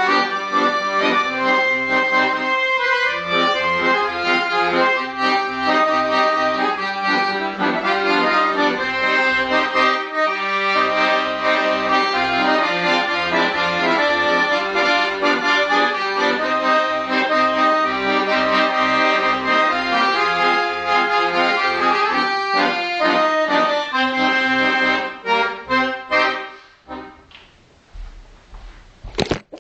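Red piano accordion playing a Polish folk tune, a right-hand melody over a steady, rhythmic bass-and-chord accompaniment. The tune closes with a few final chords about 26 s in. Near the end there is a low rumble and a sharp click.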